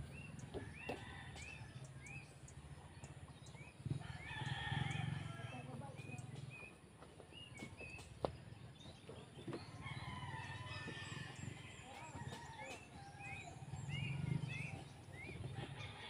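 Roosters crowing a few times, mixed with strings of short, quick bird chirps near the start and again near the end, over a faint low rumble.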